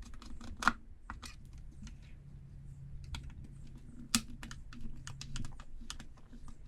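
Irregular small clicks and taps of a screwdriver working at screws in a blender's plastic base, with two sharper knocks about a second in and about four seconds in.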